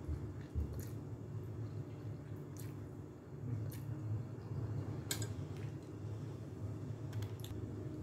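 A person eating sotanghon glass noodles: wet chewing and mouth sounds with a few short sharp clicks scattered through, over a steady low hum.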